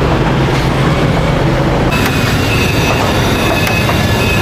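Steady, loud street noise with passing vehicle traffic. About two seconds in, the background changes abruptly and a few faint clinks and clicks come through.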